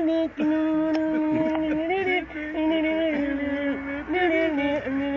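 A man singing unaccompanied without clear words: a string of long held notes, each about a second, with small slides in pitch between them.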